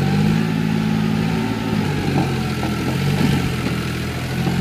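A John Deere utility tractor's diesel engine working hard as the tractor, bogged in mud, tries to drive out. The engine picks up just at the start and its pitch sags a little midway.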